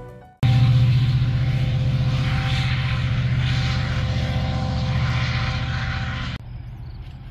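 Loud, steady engine drone with a rushing noise over it, starting abruptly about half a second in and cutting off suddenly near the end.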